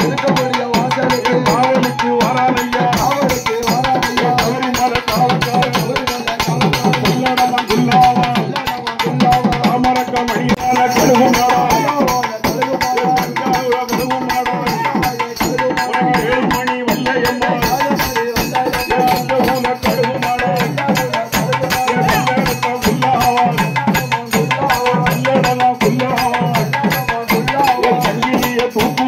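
Live Tamil folk festival music: fast, driving drumming in a steady rhythm with a sustained melody line over it.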